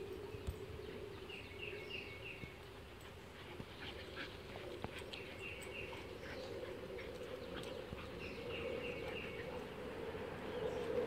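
Outdoor backyard ambience: a steady low hum under a short series of chirps from a bird or insect that comes back about three times, a few seconds apart, with a few faint clicks and scuffs.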